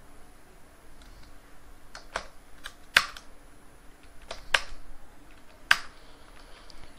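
Computer keyboard keys clicking in a few small clusters of presses: a short 'no' answer and Enter typed at successive terminal prompts. The clicks are sharp and separate, the loudest about three seconds in.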